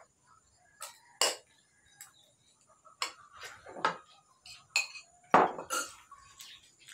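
Spoon and fork clinking and scraping against plates while eating, in short irregular strokes, the loudest about five and a half seconds in.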